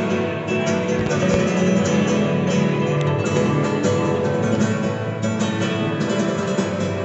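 Acoustic guitar music, plucked notes and strums played continuously.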